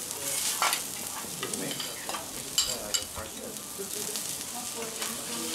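Fried rice with diced beef sizzling on a steel teppanyaki griddle, while a metal turner and spatula scrape and clink against the steel as it is tossed. Several sharp clinks stand out, about half a second, two and a half and three seconds in.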